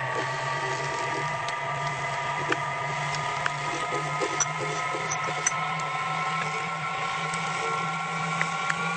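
Metal lathe running at a steady speed with a steady motor whine, and scattered light ticks and clicks from the work.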